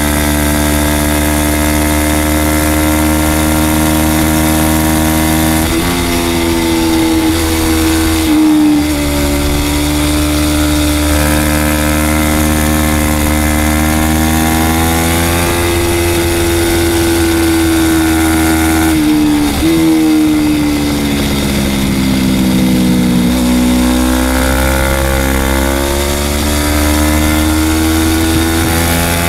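Engine of a 300-class racing motorcycle held high in the revs on track, with sudden pitch steps about six and eight seconds in. Around twenty seconds in the pitch falls for a few seconds as the bike slows, then climbs again. A steady wind hiss runs under it, heard from the bike's onboard camera.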